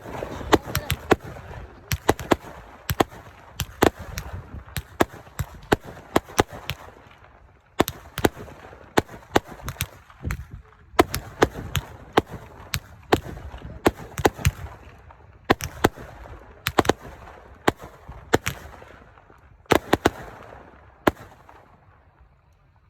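Consumer fireworks going off: a long run of sharp bangs and crackles, several a second in clusters with short pauses between, thinning out near the end.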